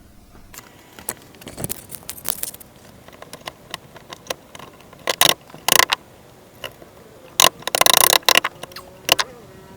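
Metal clinks and scrapes of hand tools and hardware being worked while the steering cable's mounting bolts are fitted. They come in irregular bursts, loudest around five to six seconds in and in a cluster near eight seconds.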